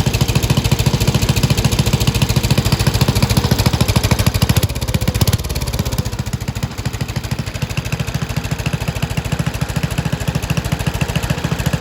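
Hot-rodded 8 hp Briggs & Stratton single-cylinder engine on a 1975 Montgomery Ward riding mower, running with a rapid, choppy exhaust beat. It has a bigger cam, bigger valves and springs, which give it a mean sound. The level drops a little about five seconds in.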